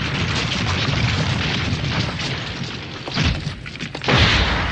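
Anime fight-scene sound effects: a continuous low rumbling boom, with two louder sudden hits about three and four seconds in.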